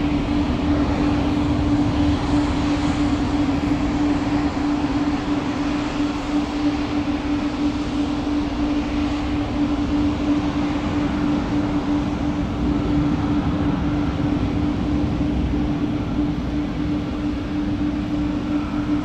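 Jet engines of a United Boeing 737 at takeoff power as it lifts off and climbs away: a steady roar, with a constant low hum running under it.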